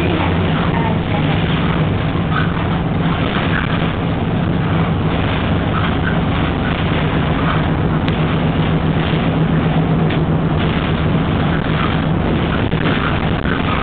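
Cabin noise inside a moving bus: the engine's steady low hum and road noise, with the hum easing a little near the end.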